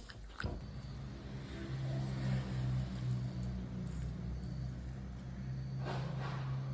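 A motor running at a steady low hum, starting with a knock about half a second in.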